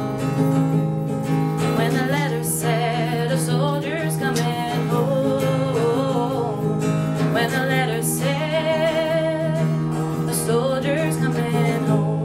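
Acoustic guitar strummed steadily while a singer holds long, wavering sung notes over it.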